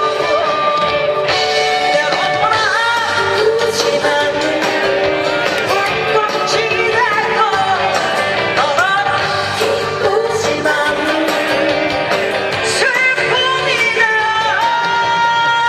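A woman singing with vibrato over a live band, amplified through an outdoor stage sound system.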